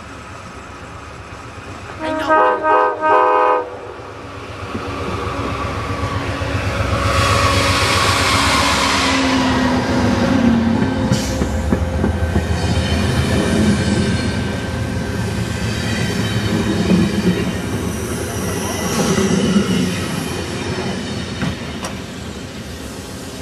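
Amtrak P42DC diesel locomotive sounds three short horn blasts about two seconds in, then passes close by with its engine running and a falling pitch. Its Amfleet coaches follow, their wheels clicking over the rail joints.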